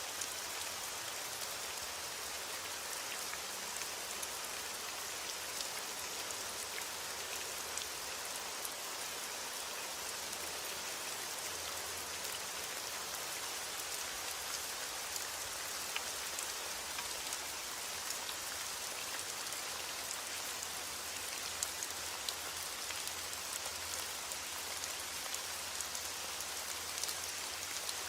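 Steady rain falling, a constant even hiss with many fine droplet ticks and no thunder.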